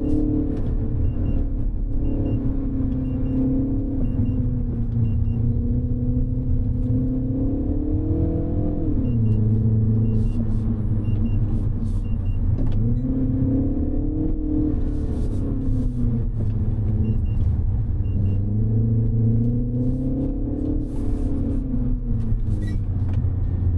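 2025 Mini Cooper S's turbocharged 2.0-litre four-cylinder engine under way, its revs climbing slowly and then dropping sharply several times, over a steady low road rumble. A faint short tick repeats about once a second through parts of it.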